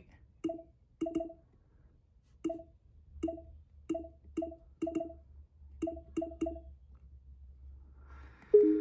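Nintendo Alarmo alarm clock's menu sounds as its dial is turned: about ten short, identical clicky blips at irregular intervals, each with the same low two-note tone. Near the end comes a louder, longer two-note tone.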